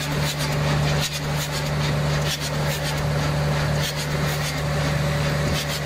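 An engine idling steadily, with short hisses of an aerosol can of starting fluid sprayed into the air cleaner of a diesel that will not start.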